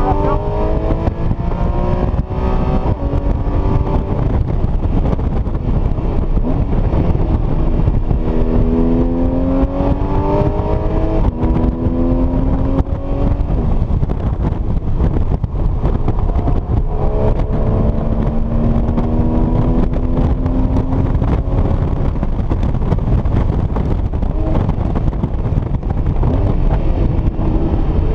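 Porsche Cayman S engine heard from inside the cabin at track speed, rising in pitch through several hard pulls with easings in between, over steady road and wind noise.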